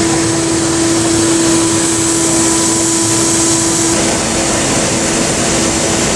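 Steady, loud rushing noise with a constant mid-pitched hum from running machinery. The hum weakens about four seconds in.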